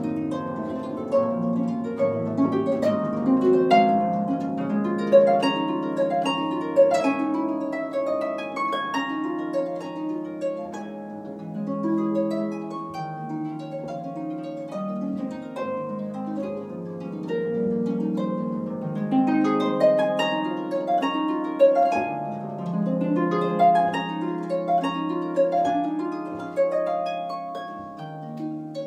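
Solo concert pedal harp playing classical music: a continuous stream of quick plucked notes and chords, each left ringing under the next.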